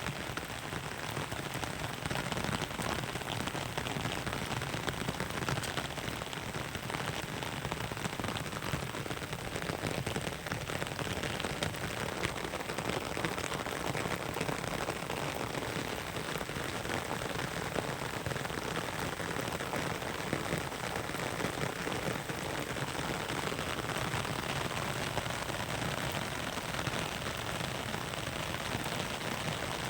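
Heavy rain falling steadily, a dense even patter of drops with no let-up.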